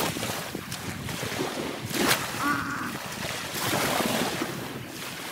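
Waves washing on a beach and wind on the microphone, with a short louder rush about two seconds in.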